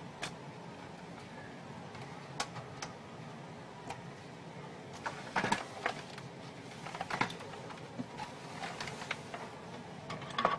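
Irregular light clicks and taps from small hard parts being handled, bunched about five and seven seconds in and again near the end, over a steady low background hum.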